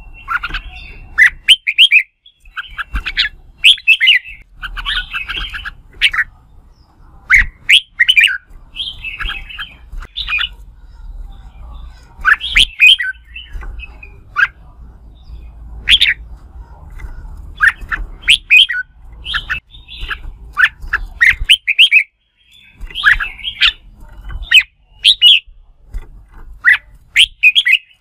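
Red-whiskered bulbul singing: short, sharp whistled phrases and chattering notes repeated one after another with brief gaps, in the loud competitive singing style that bird-keepers use to provoke other bulbuls.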